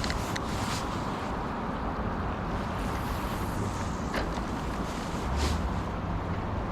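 Steady rushing noise of wind buffeting the microphone, with a couple of brief soft scuffs.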